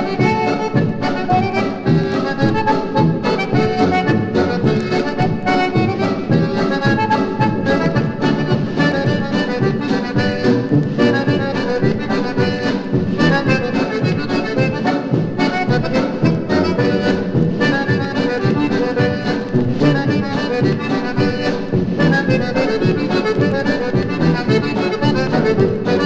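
Early-1960s Wisconsin polka band record playing: an accordion carries the tune over a steady oom-pah beat.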